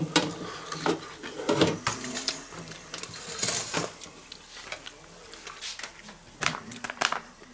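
Clinks and knocks of a wire deep-fryer basket being hooked onto the fryer's rim and a stainless steel bowl of fries being handled: irregular short clatter, with a rustle partway through and two sharp knocks near the end.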